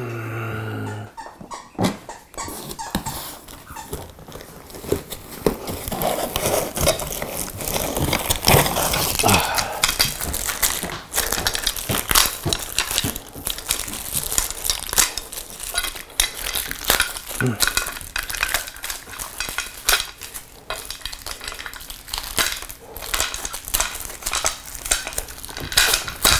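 Clinks, knocks and rustling of metal and plastic parts being handled while a light panel's yoke and mounting hardware are assembled, with many short clicks and taps.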